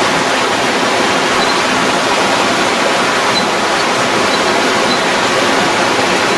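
Floodwater rushing fast and churning through a flooded street: a steady, loud rush of water.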